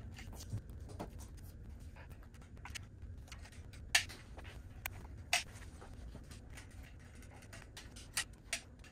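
Hand caulking gun clicking as its trigger is squeezed to lay a bead of urethane sealant: one sharp click at the start, then scattered softer clicks, over a low steady hum.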